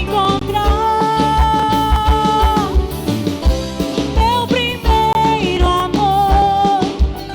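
A live band plays an instrumental passage: a lead melody of bending, long-held notes over a steady kick drum beat.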